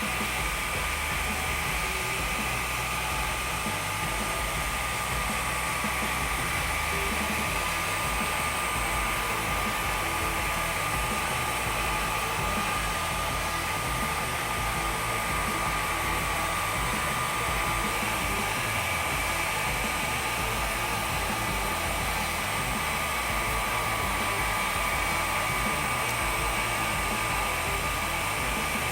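Longer LK4 Pro 3D printer's power-supply and hot-end cooling fans running, a steady whirr with a high whine held throughout. It is so noisy that the fans need replacing.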